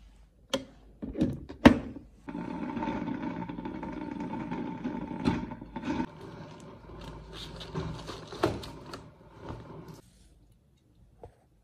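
Drip coffee maker: a few clicks and knocks as it is shut and set going, then the machine running steadily as it brews, with a few more knocks. The running stops about ten seconds in.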